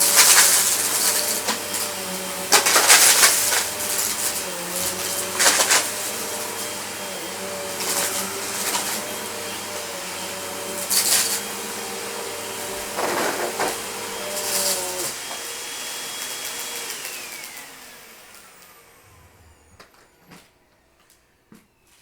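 Vacuum cleaner running with a steady motor whine, broken by repeated sharp crackling bursts as debris is sucked up. About 15 seconds in it is switched off and the motor winds down, its whine falling in pitch as it fades out.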